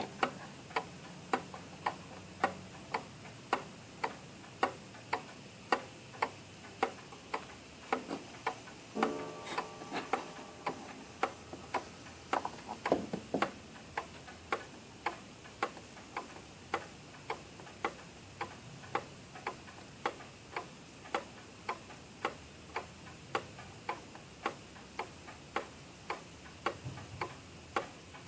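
Seth Thomas 30-hour ogee clock movement ticking steadily, about two ticks a second, as its pendulum and escapement run.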